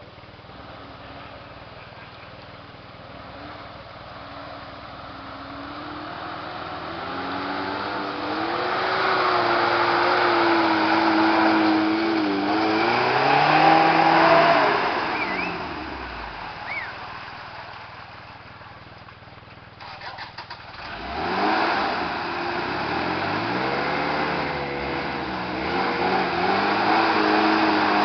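Off-road race vehicle engines revving hard as one comes up and passes, loudest about 14 seconds in, its pitch then dropping away as it leaves. After a brief crackle around 20 seconds, another engine climbs in pitch and revs as a second vehicle approaches.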